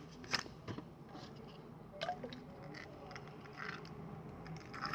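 Faint wet squishing of homemade slime (white glue, shaving foam and saline solution) being stirred in a pot, with a few light clicks against the container.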